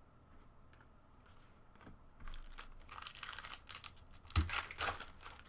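Trading card pack wrapper crinkling and tearing as it is opened, starting about two seconds in, with a sharp knock about four seconds in.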